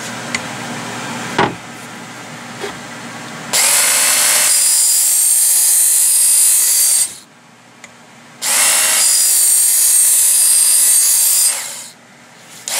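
Work Sharp Knife and Tool Sharpener, an electric belt sharpener with its coarse green abrasive belt, grinding the edge of an axe. There are two runs of about three seconds each: the motor whines up to speed at each start and the belt hisses on the steel, then it cuts off sharply. A third run starts at the very end, and a fainter steady hum comes before the first run.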